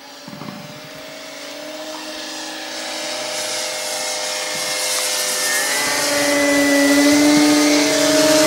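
Electric motors and propellers of E-flite Cessna 150 foam RC planes whining in flight, growing steadily louder as they come close overhead.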